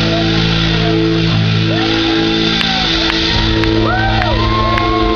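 Rock band's amplified instruments holding a sustained closing chord, with the crowd shouting and whistling over it; sharp clicks about twice a second in the second half.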